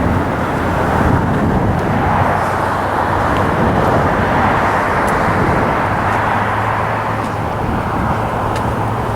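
Steady noise of busy freeway traffic, many cars passing at once with no single vehicle standing out.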